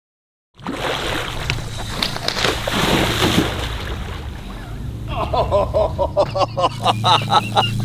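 A tarpon thrashing at the water's surface, with a loud splash about two to three and a half seconds in. Excited voices break out from about five seconds.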